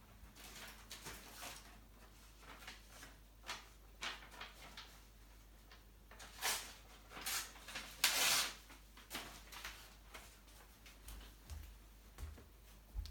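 Handling noises while fetching a sheet of paper: scattered short rustles and light knocks, with a longer, louder rustle about eight seconds in.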